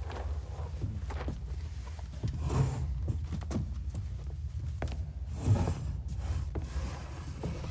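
Footsteps and a few small knocks of a man moving about and handling a chair, over a low steady hum. The sharpest knock comes about two thirds of the way through.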